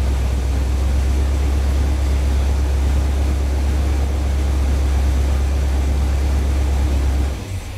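1975 Corvette's 350 V8 idling steadily with a deep low rumble, running to supply vacuum for testing the headlight actuators, then shut off near the end.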